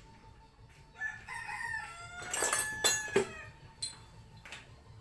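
A rooster crowing once, about two seconds long, with a few sharp clicks around it.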